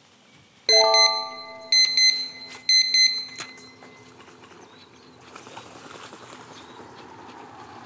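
A bright electronic chime sound effect: three ringing bursts about a second apart, each a quick double or triple ding, dying away by about four seconds in. After that only a faint steady rushing noise.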